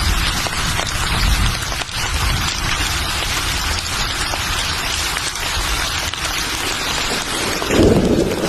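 Steady heavy rainfall, a dense even hiss of drops on surfaces over a low rumble. Near the end a louder low swell rises under the rain.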